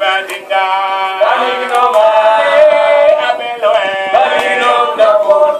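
Voices singing a chant-like song, with long held notes.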